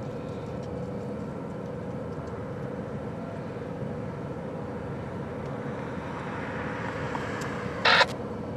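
Freight train rolling past at a distance, a steady low rumble heard from inside a vehicle. Near the end a scanner radio gives a brief crackle of squelch.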